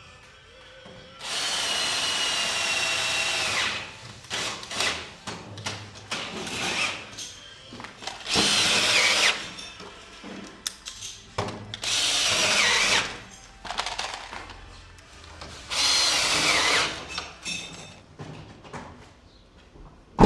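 Power drill running in four separate bursts of one to two and a half seconds, its whine dropping in pitch as each run winds down. Clicks and knocks come between the runs.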